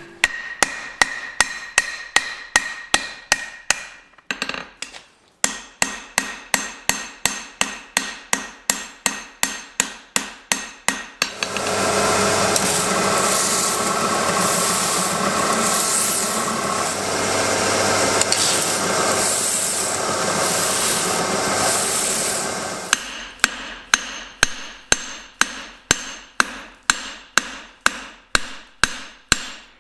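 Hand hammer striking hot steel on an anvil in a steady rhythm of about three blows a second, forging a cross peen hammer head, with a short pause about four seconds in. From about eleven seconds in, the blows give way to roughly twelve seconds of loud continuous rushing noise, then the steady hammering resumes.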